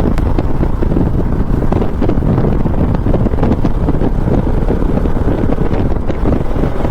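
Steady wind buffeting on the microphone on a motorcycle, with the bike's engine running underneath.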